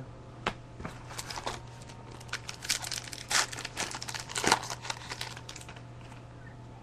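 Foil trading-card pack wrapper crinkling and tearing as a pack is opened: a run of sharp, irregular crackles, loudest in the middle, stopping abruptly at the end.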